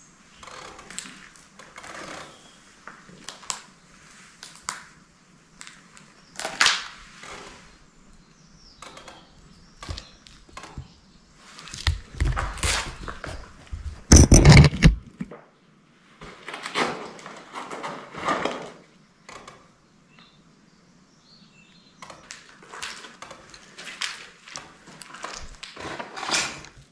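Irregular crunches, scrapes and knocks of footsteps and shifting brick and plaster rubble, with one loud heavy thud about halfway through.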